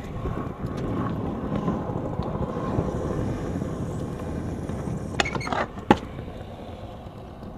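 Freestyle kick scooter's wheels rolling over paving tiles, a steady rumble, with a few sharp clacks a little past halfway. The rumble fades near the end.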